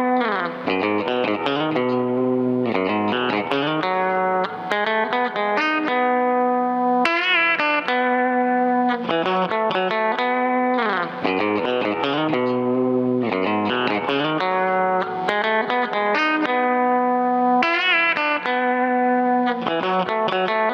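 Electric guitar, a Fender Coronado II, played through a Keeley Compressor Plus compressor pedal and amp: a country-style single-note line with long, even, sustained notes and several slides in pitch.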